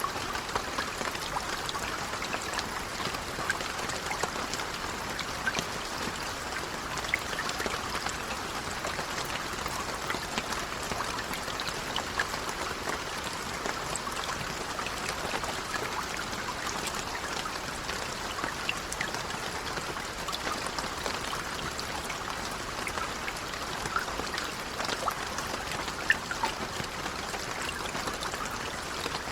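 Steady rain falling, an even hiss with many small scattered drop ticks and the odd sharper drop.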